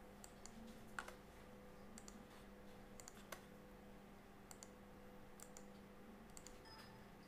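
Near silence with faint computer mouse clicks over a steady low hum, two sharper clicks about one second and three and a half seconds in.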